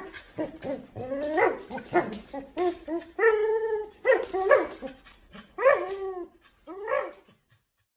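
Husky vocalizing while playing tug-of-war with a rope toy: a string of short, high whines and yips that rise and fall in pitch, one held longer about three seconds in, stopping about seven seconds in.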